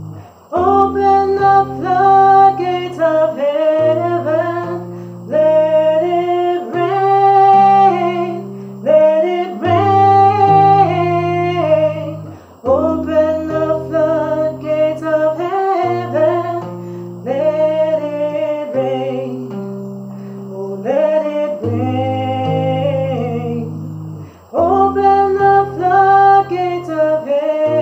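Music: an instrumental passage of a worship song, with low bass notes changing every second or so and a sustained melody line above them.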